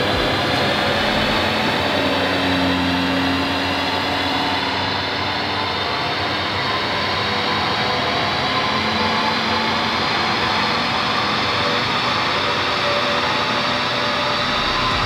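Audi RS3's rebuilt 2.5-litre five-cylinder engine running under load on a chassis dyno, its pitch rising slowly and steadily as the revs climb through the pull.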